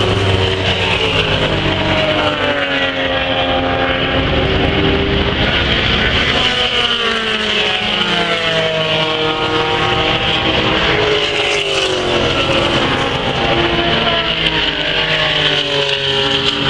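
Several classic racing cars' engines revving hard as the field goes by, their notes climbing and dropping in pitch again and again, several engines overlapping.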